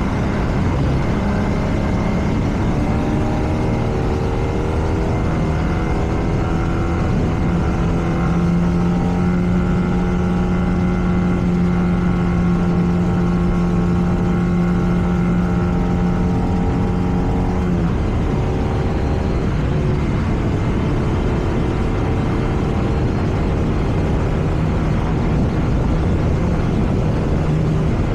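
BMW R nineT's air/oil-cooled boxer twin running under way: the engine note climbs for a few seconds, holds steady, drops sharply about eighteen seconds in, then climbs again near the end. Constant wind and road rush underneath.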